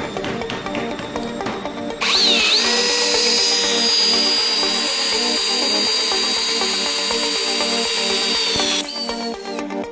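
Power drill driving a screw into a pine board: its motor starts about two seconds in with a quick dip in pitch, then runs as a steady whine for about seven seconds before stopping. Electronic background music with a steady beat plays throughout.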